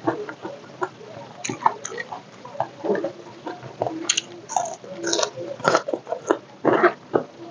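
Close-up eating sounds: irregular crunching bites and chewing of crispy food, with wet mouth noises between them.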